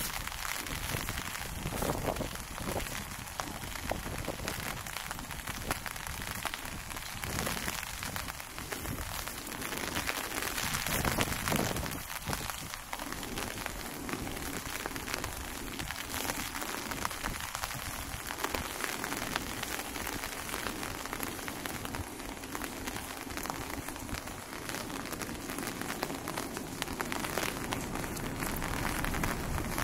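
Steady rain falling, a dense patter of drops that swells briefly about a third of the way in.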